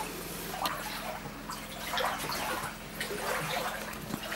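Floodwater inside a house sloshing and splashing in irregular bursts, over a steady low hum.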